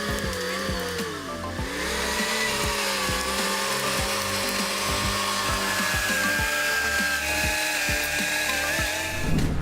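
Heavy earthmoving machine's engine working under load, its pitch dipping sharply about a second and a half in and then recovering, with scattered knocks and cracks, mixed with background music.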